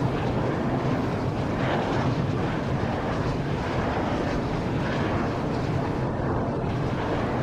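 Large three-bladed wind turbine turning: a steady rushing noise from the rotor, with a faint swish that swells and fades every second or so.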